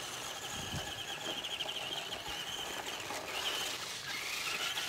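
Small electric RC truck driving over dirt, its motor giving a thin, wavering high whine that fades out about three seconds in and comes back briefly near the end.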